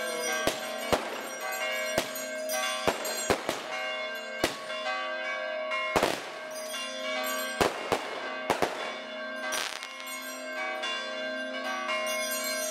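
Church bells ringing steadily, with about a dozen loud, sharp bangs of fireworks or firecrackers going off at irregular intervals, roughly one a second.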